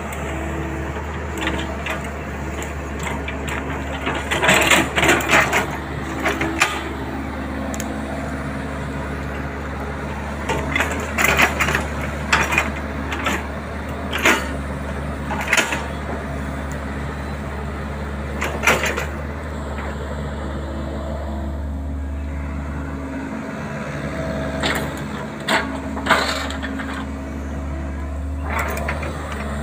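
XCMG mini excavator's diesel engine running steadily under hydraulic load while digging. Over it come repeated sharp cracks and crunches as the bucket breaks through wood and brush.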